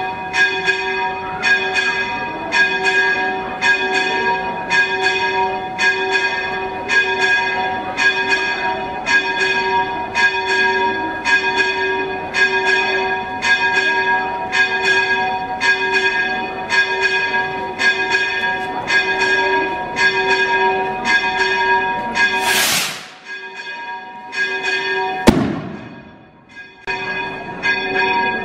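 Church bell rung in quick repeated strokes, about two a second, each stroke leaving the tone ringing on. Near the end the ringing breaks off for a moment, with a loud whoosh and then a single sharp bang, before the strokes start again.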